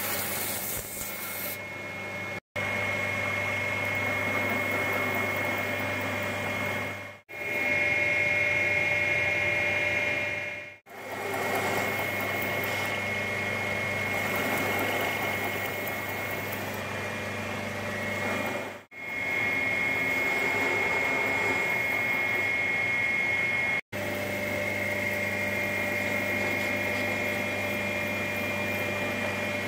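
Belt grinder running steadily with a constant hum and whine, as the black linen micarta handle scales of a knife are pressed against the sanding belt to shape them. The sound drops out briefly five times.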